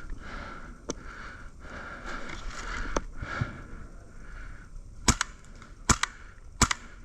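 Airsoft gun firing single shots: faint sharp cracks about one and three seconds in, then three loud ones spaced under a second apart near the end.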